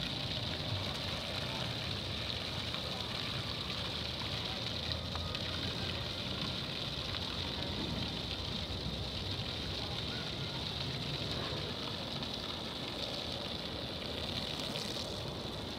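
Steady hiss of a garden hose spraying water onto grass and an emu, over a low rumble.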